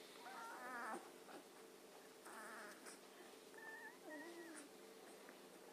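Beagle puppies whimpering in a few short, high, wavering whines.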